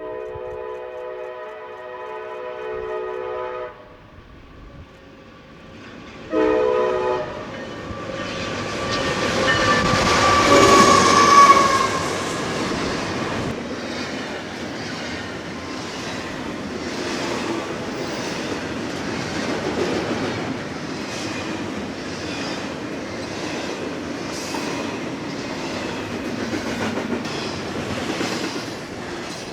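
Union Pacific intermodal train passing: the locomotive's multi-note air horn sounds a long blast, then a short one, then a further blast that grows loud and drops in pitch as the locomotive goes by. The intermodal cars then roll past with a steady, rhythmic clicking of wheels over the rails.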